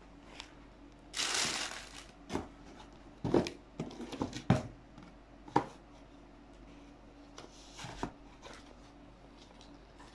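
Rustling wrapping and the knocks of a shoe box as a new sandal is unpacked: a burst of rustling about a second in, then a string of sharp taps and knocks, and a few softer rustles and taps later.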